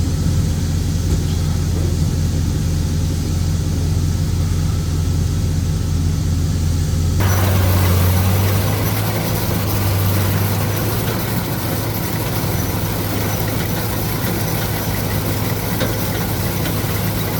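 John Deere 4400 combine running with a steady low engine hum. About seven seconds in, the sound suddenly changes to a noisier, fuller mix with a slightly shifted hum.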